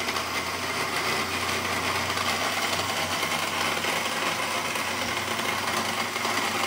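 Countertop blender motor running steadily at one speed, churning a thick milky smoothie mix. The top of the mix is not turning over.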